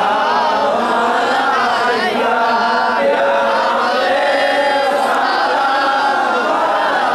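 A group of men chanting a devotional salam together in chorus, their voices running on without a break.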